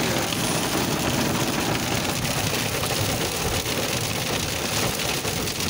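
Heavy rain pelting the car steadily, heard from inside the cabin: a dense, even hiss of drops with no break.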